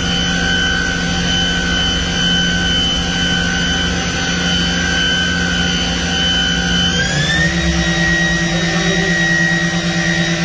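Mazak VCN 410A vertical machining center running with a steady motor whine over a hum. About seven seconds in the whine glides up in pitch and holds at the higher note, as the spindle speeds up.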